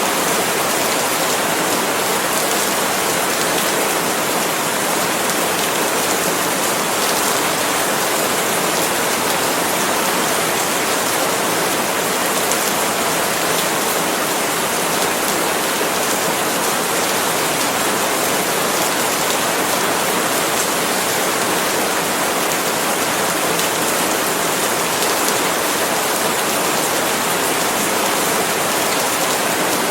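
Steady heavy rain falling on palm leaves: a dense, even hiss of drops that holds constant.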